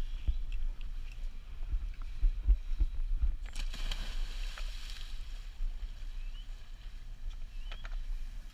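A scuba diver in full gear jumping off a dive boat into the sea, landing with a splash about three and a half seconds in that lasts about a second and a half. A low rumble with a few knocks runs underneath.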